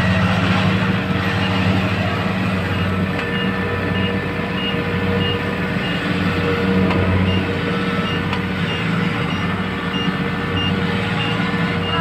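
Kubota DC-70 Plus crawler combine harvester's diesel engine running steadily as the machine manoeuvres. From about three seconds in, a high reverse-alarm beep repeats about twice a second, the sign that it is backing up.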